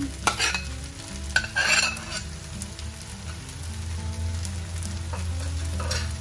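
Metal spatula scraping and stirring fried rice in a wok over a low frying sizzle, with a few loud scrapes in the first two seconds and another near the end.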